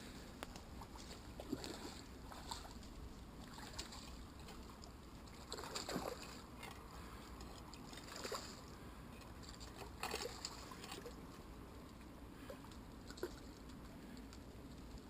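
Faint steady outdoor background with scattered small knocks and rustles, the loudest about six and ten seconds in.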